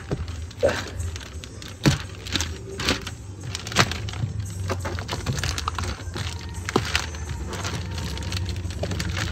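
Clear plastic protective film being pulled and torn off a car's interior door trim by hand, crinkling and crackling in irregular sharp snaps.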